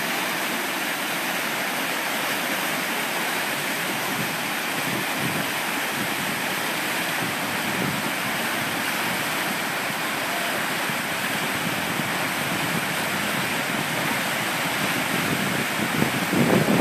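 Whitewater rapids rushing in a steady roar of churning water. Near the end the sound swells louder and rougher.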